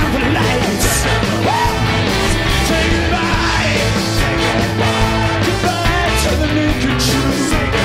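Live rock band playing loudly: electric guitars, bass and drums.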